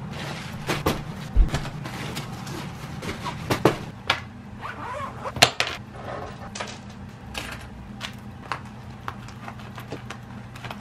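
Handling sounds of packing: irregular light knocks, clicks and rustles as clothes and packing cubes are pushed into a hard-shell suitcase and toiletries are handled in a plastic-pouched toiletry bag, over a steady low hum.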